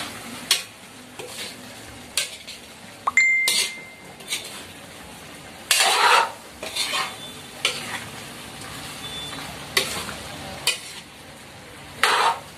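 Metal spatula scraping and clanking against a large steel wok while stirring chunks of pork, potato and carrot, in irregular strokes over a steady sizzle of frying. The longest, loudest scrape comes about six seconds in, and one knock near three seconds leaves a short ring.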